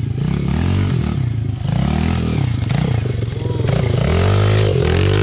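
Small single-cylinder Honda CRF100 dirt bike engine revved up and down over and over, about once a second, as the bike is worked over rocks in a creek bed.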